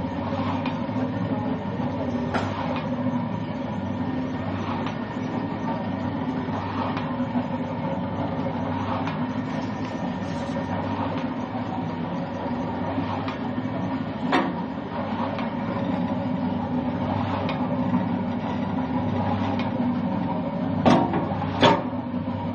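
Pan mixer driven by a 3 hp Crompton electric motor through a reduction gearbox, running empty with a steady hum and a faint tick about every two seconds. Two sharper knocks come near the end.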